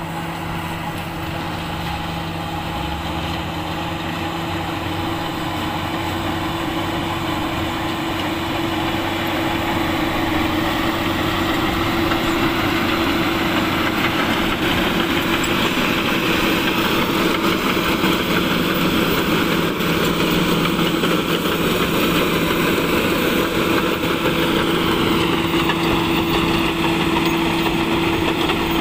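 Komatsu crawler bulldozer's diesel engine running steadily as the dozer pushes earth with its blade, growing louder over the first ten seconds or so and then holding.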